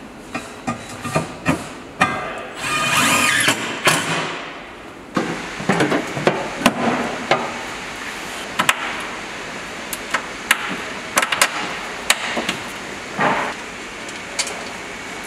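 Irregular metal knocks and clanks from hand work with tools on a vehicle's underbody, with a short whirring burst from a cordless power tool about three seconds in.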